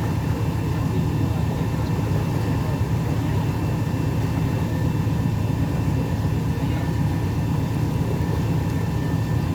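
A river cruise boat's engine running steadily, heard on board as a constant low rumble with a faint steady whine above it.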